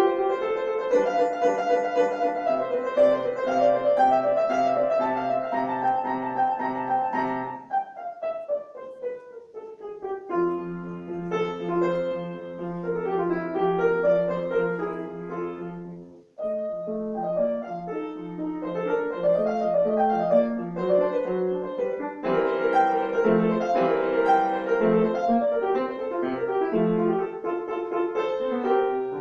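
Solo grand piano playing a classical piece, with a fast falling run of notes about a third of the way in and a brief break just past the middle before the playing resumes.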